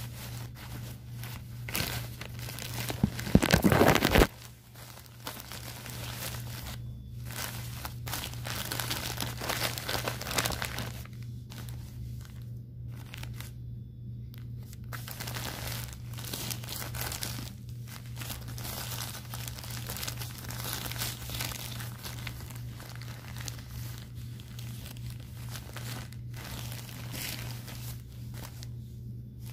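Plastic-backed adult diaper crinkling and rustling as hands squeeze and handle it, in irregular bursts. The loudest burst comes about three seconds in and lasts about a second.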